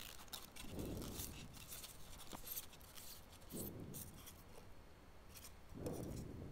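Faint scratching and rubbing of a styrofoam block as a pen is pushed through it and the foam is handled, in a few short scratchy strokes.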